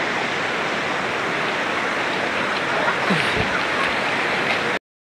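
Steady rush of flowing river water with splashing close to the microphone held at the water's surface, with a brief knock a little past three seconds in. The sound cuts off suddenly just before the end.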